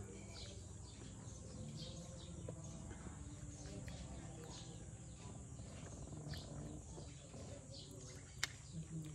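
Birds chirping, short high calls repeating irregularly over a faint steady hiss, with one sharp click near the end.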